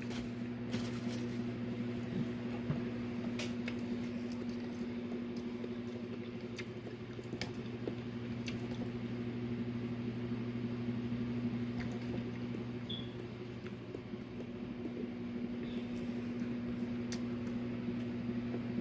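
Faint eating sounds, scattered soft clicks of chewing and handling food, over a steady low electrical hum.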